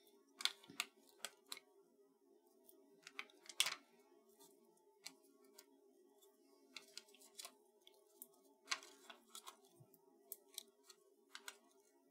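Scattered light clicks and taps of paper die cuts and small adhesive pieces being handled and pressed onto a cardstock scrapbook layout, the sharpest about three and a half seconds in, over a faint steady hum.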